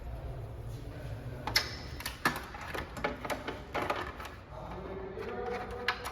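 Irregular clicks and clacks of hard plastic and metal parts being handled and fitted, several sharp knocks among them.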